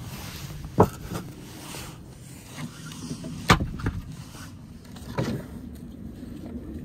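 Split firewood logs knocking as they are set down and stacked one by one inside a clay dome oven: three sharper wooden knocks, about a second in, halfway through and near the end, with lighter clatter between.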